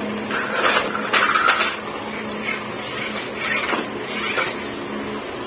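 Objects being handled: a series of short clatters and rustles, bunched about half a second to a second and a half in and again near four seconds, over a steady low hum.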